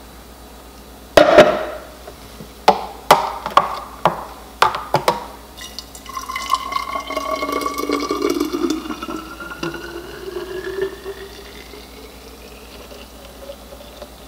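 Green juice poured from a juicer jug into a tall glass bottle, a pouring sound whose pitch rises steadily as the bottle fills. Before the pour there are several sharp glass knocks.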